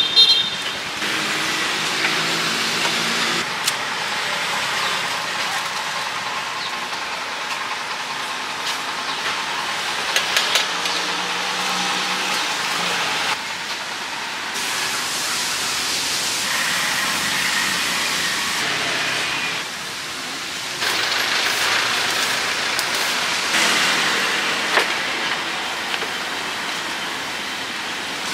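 Steady street traffic noise, with a few short knocks and rustles from charcoal and plastic bags being handled at a charcoal grill. The background noise jumps up or down abruptly several times.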